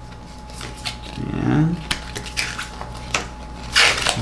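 Paper warranty card and instruction leaflet being handled and folded: scattered rustles, taps and small clicks, growing busier after about a second, with a louder rustle near the end.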